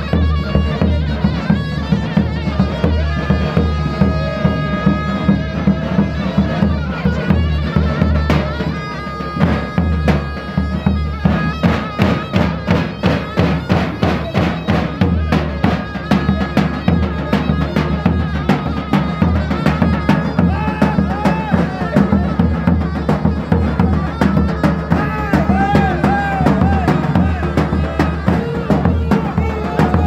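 Davul (large double-headed bass drum) beaten with a stick in a steady dance rhythm, under a wind instrument playing a bending folk melody.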